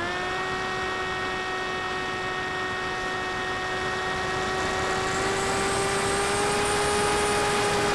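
The Grim Reaper XL RC plane's 3530 1400 kV brushless motor and propeller whining steadily in flight, heard from the camera mounted on the plane. The pitch climbs right at the start, holds, then rises slightly and grows a little louder a little past halfway.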